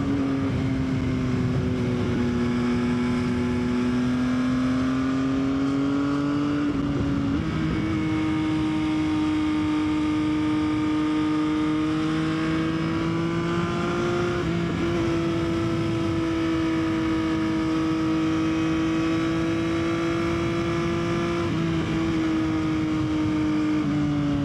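Yamaha XSR900's three-cylinder engine running steadily under way, over a constant rush of wind. The engine note breaks briefly about three times where its pitch steps, as at gear changes.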